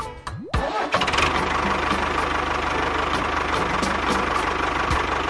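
A short rising glide, then an engine-like motor sound starts abruptly about half a second in and runs steadily with an even low pulse.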